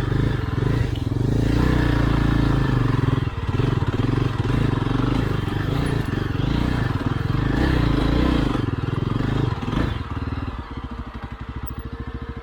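Single-cylinder adventure motorcycle engine running and revving up and down, then dropping to a slow, uneven idle and cutting out near the end: the bike stalls as soon as the clutch is let out.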